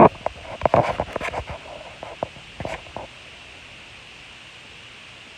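A quick run of clicks and short knocks for about three seconds, the loudest right at the start, then only a steady hiss.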